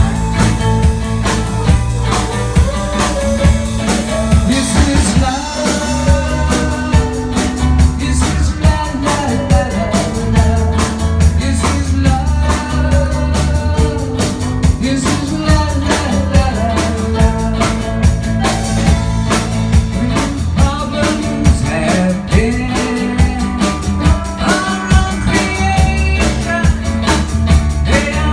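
Live band playing a rock and roll number: a steady drum beat and bass under a gliding melodic lead line.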